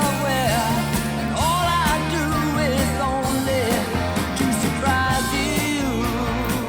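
Rock song with a male lead vocal over sustained keyboards, bass and a steady drum beat.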